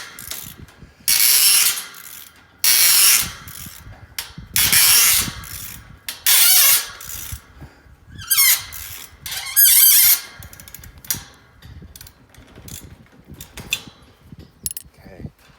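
Ratchet wrench clicking in repeated strokes while turning a bolt on the gate opener's clamp: about six loud strokes over the first ten seconds, then only a few light clicks.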